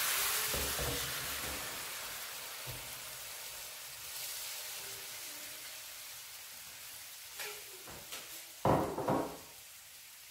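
Brandy poured into a hot pan of whole prawns frying in oil: a loud sizzle at first that dies down slowly to a soft hiss, with a few short knocks near the end.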